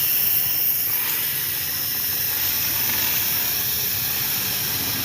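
High-pressure washer jet spraying water onto a motorcycle, a steady loud hiss.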